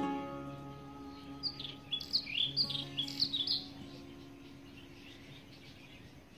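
A strummed guitar chord rings out and fades as the background music ends. Over it, a bird gives a quick run of high chirps for about two seconds, starting about a second and a half in, then fainter chirps follow.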